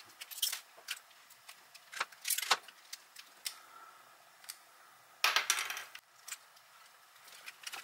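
Small plastic parts of a Furby's eye mechanism clicking and rattling as they are pried and handled, with scattered sharp clicks and one louder, longer rattle about five seconds in.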